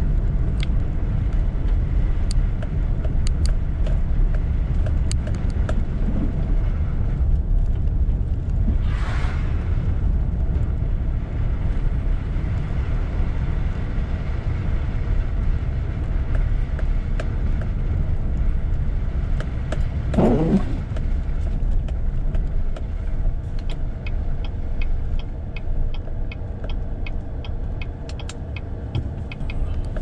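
Steady low rumble of a car's engine and tyres on a snowy road, heard from inside the cabin. In the last quarter a turn-signal indicator ticks evenly, about two ticks a second.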